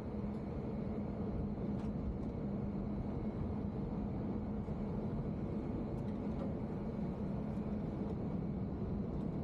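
Passenger ferry's engines running with a steady low hum, under a continuous rushing noise on the open stern deck.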